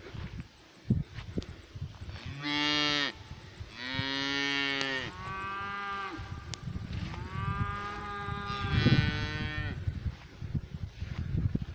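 Cattle in a herd mooing: about five long, deep moos one after another, starting a couple of seconds in and running until near the end.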